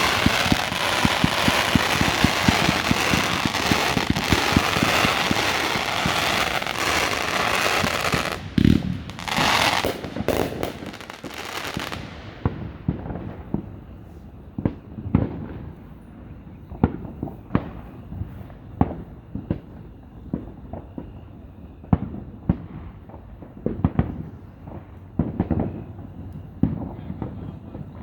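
Aerial fireworks. For the first eight seconds or so there is a dense, continuous barrage of crackling and bangs, then a few loud bursts. From about twelve seconds in, the sound thins to separate, duller booms every second or two.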